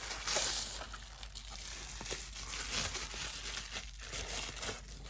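Packaging crinkling and rustling as it is handled and unwrapped during an unboxing, with a louder crackle about a third of a second in.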